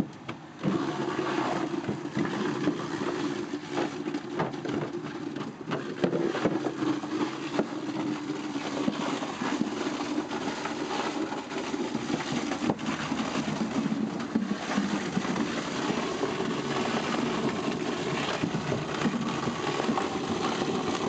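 Homemade apple scratter running with a steady hum, chopping apples with irregular knocks and crunches. The sound comes in about half a second in.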